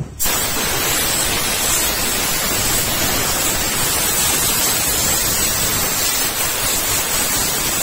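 Compressed-air blow gun blasting air through a car radiator's fins to blow the dust out of the core. A loud, steady hiss starts suddenly just after the start and holds on, with a faint high whistle on top.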